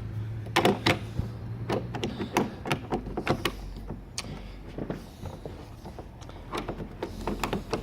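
Lockwood 001 deadlatch and its door hardware being worked by hand: a series of irregular sharp metallic clicks and clacks. The latch is not working right; its deadlock plunger is catching on the frame.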